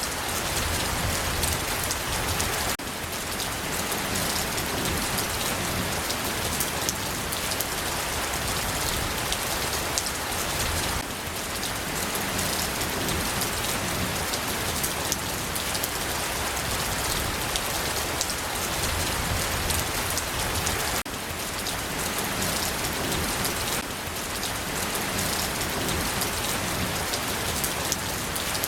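Steady rain falling on a surface, a dense even hiss dotted with the patter of individual drops. The level shifts slightly and abruptly a few times.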